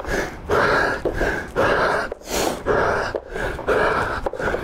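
A man breathing hard and fast through his mouth, panting about twice a second, winded from a long set of bodyweight squats.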